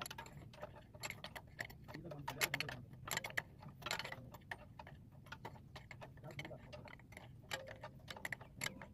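Faint, irregular metallic clicks and taps from hand tools working a mounting bolt on an Isuzu 6BG1 diesel injection pump.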